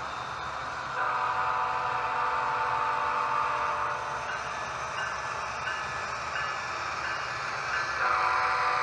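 Sound-equipped HO scale model diesel locomotive blowing its horn chord through its small onboard speaker. A blast starts abruptly about a second in, the chord shifts and grows quieter about four seconds in, then swells loud again near the end.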